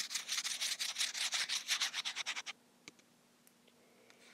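Chalkboard eraser wiping sound of a blackboard drawing app as the board is cleared: rapid back-and-forth rubbing strokes that stop about two and a half seconds in, followed by a single click.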